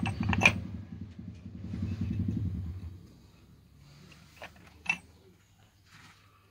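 A small engine, such as a motorcycle's, running with an even low pulse, fading out about three seconds in. Then a few light metallic clinks as the aluminium final-drive gearbox cover of a scooter is handled and offered up to its gears.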